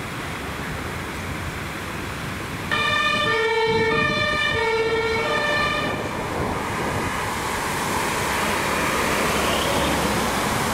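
German emergency-vehicle two-tone siren sounding for about three seconds, two notes alternating roughly every half second, then cutting off abruptly. Steady traffic and engine noise follows, slowly growing louder as a vehicle approaches.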